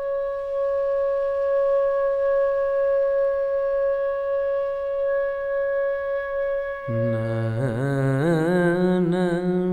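Carnatic music: a flute holds one long steady note for about seven seconds. Then a singer comes in, sliding and wavering around the notes in ornamented phrases.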